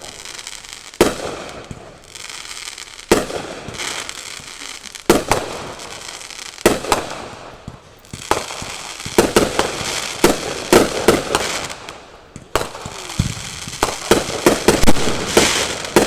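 Fireworks going off: single loud bangs about every two seconds at first, then quick volleys of many bangs with crackling about nine seconds in and again near the end.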